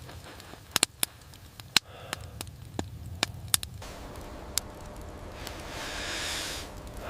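Wood fire crackling, with a handful of sharp pops over a low steady rumble, then a soft rushing swell of noise near the end.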